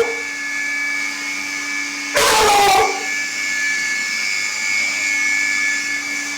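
Vacuum cleaner running with a steady motor whine. A loud, short noisy sound lasting under a second breaks in a little after two seconds.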